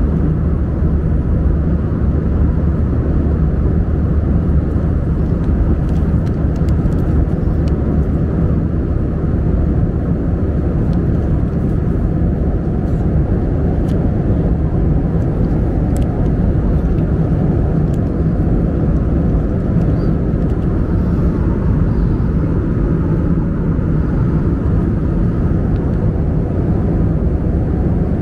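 Steady drone inside an Airbus A320's passenger cabin, the noise of the engines and air rushing past heard from a seat, heavy in the low end and unbroken. Faint crinkles of paper being handled come through now and then.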